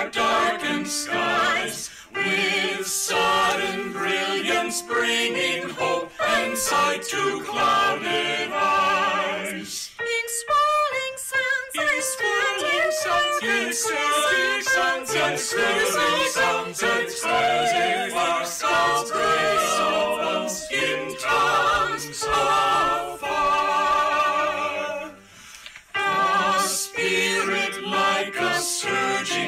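Small mixed choir of men's and women's voices singing a hymn a cappella in parts, with short breaks between phrases.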